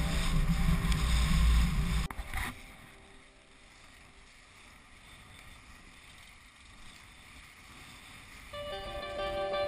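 Wind buffeting the microphone and water rushing past the hull of a First 33.7 sailing yacht under way in heavy wind. It cuts off about two seconds in, leaving a faint hiss, and music comes in near the end.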